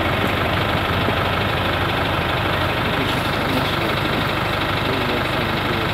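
Bus engine idling steadily with a low, even rumble.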